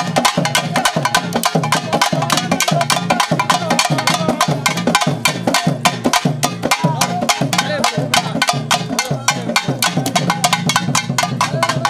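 Rapid, steady drumming, about seven sharp strokes a second, over a low drone, with a wavering melody above it.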